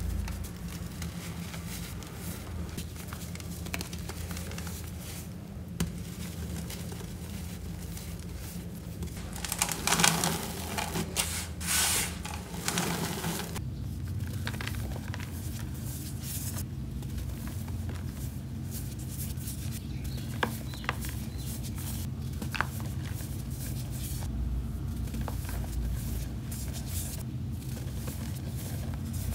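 Hands crumbling reformed sand blocks, then pressed calcium carbonate chalk balls: dry crunching and trickling of grains and powder. The loudest stretch of crumbling comes about ten to thirteen seconds in, with scattered small cracks afterwards, over a steady low hum.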